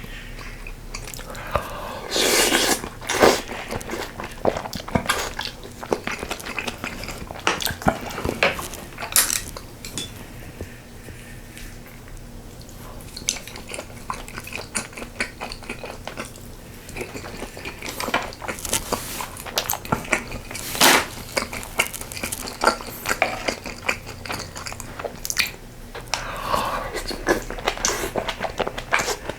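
Eating utensils clicking and scraping against the pot and bowl, with chewing in between, as spicy sausage stew with ramen noodles is eaten. The clicks come irregularly, with a few louder stretches.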